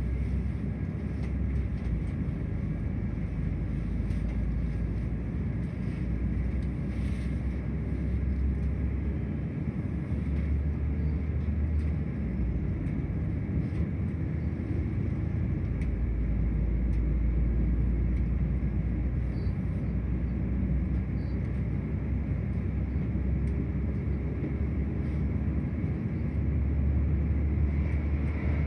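Cabin noise inside a Class 172/0 Turbostar diesel multiple unit pulling away from a stop: a steady rumble from the underfloor diesel engine and the wheels on the track. Near the end another train passes alongside and the noise swells briefly.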